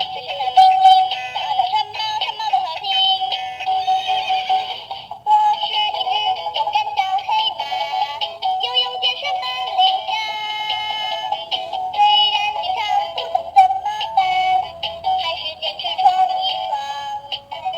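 Children's early-education song played through a toy truck's small built-in speaker: a thin electronic melody with synthesized singing and almost no bass. There is a short break about five seconds in before the music carries on.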